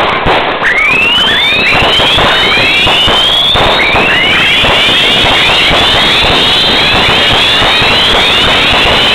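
Fireworks spraying sparks with a steady rushing hiss. From about a second in, a rapid string of overlapping rising whistles joins it, two or three a second.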